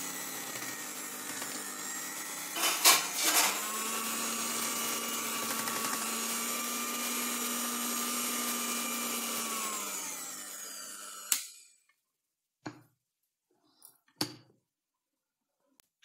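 Electric hand mixer running steadily, its beaters whipping cake batter in a glass bowl, with a couple of loud knocks about three seconds in. The motor winds down and stops about two-thirds of the way through, followed by a few short sharp taps.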